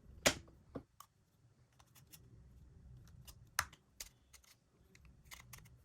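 Scattered sharp little plastic clicks and snaps from a car key fob being handled and its case opened to reach the battery, a few of them louder than the rest.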